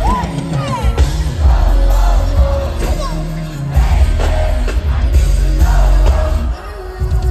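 Loud live concert music with heavy bass and singing, heard from within the audience; the music thins out and drops in level near the end.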